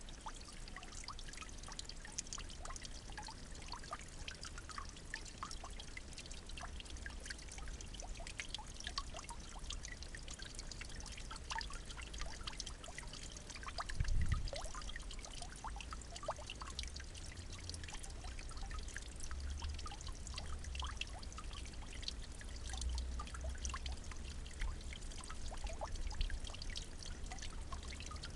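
Steady trickle of running water, full of small splashing ticks, over a low rumble, with one dull thump about halfway through.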